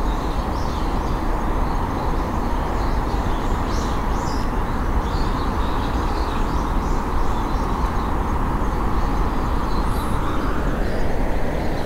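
Steady outdoor hum of distant city traffic with a low rumble, widening a little near the end, and a few faint bird chirps.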